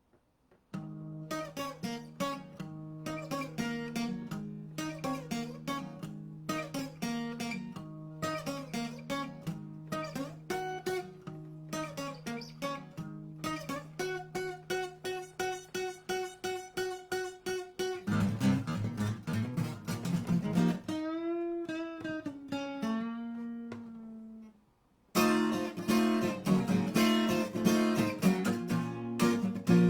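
Acoustic guitar playing a song's opening: picked single notes over a held bass note, then strummed chords and a few held notes with wavering pitch. After a brief stop it comes back with louder strumming.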